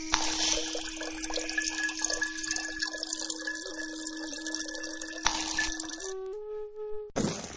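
Trickling, dripping water under a held steady tone that steps up in pitch about six seconds in. A sudden rush of noise starts near the end.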